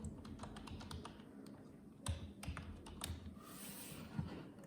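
Typing on a computer keyboard: irregular light key clicks, with a few louder strikes.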